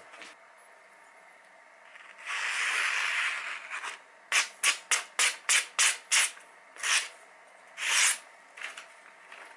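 Kitchen knife slicing through a hand-held sheet of magazine paper as a sharpness test. There is one long hissing cut about two seconds in, then a quick run of about eight short slices, then another longer cut near the end.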